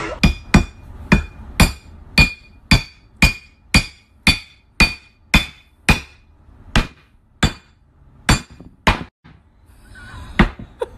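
A glass bottle struck hard against a wooden 2x4 block again and again, about two knocks a second, each with a short glassy ring. After a brief pause there is one last knock near the end.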